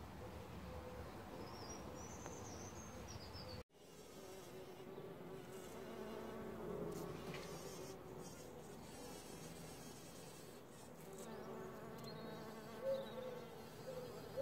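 Bumblebee buzzing at pink climbing-rose flowers: a low, wavering hum that comes in after a brief break about four seconds in. Before the break there is faint outdoor noise with a short high chirp.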